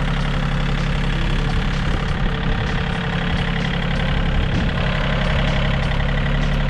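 Tractor engine running steadily at a low, even speed.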